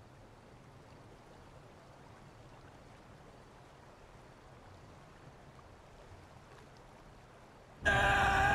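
Faint steady rush of a flowing stream. About eight seconds in it cuts abruptly to a man screaming over a loud car engine.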